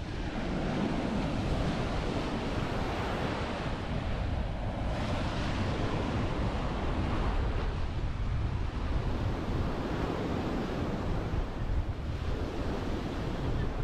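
Waves washing onto the beach, swelling and easing every few seconds, with wind buffeting the microphone.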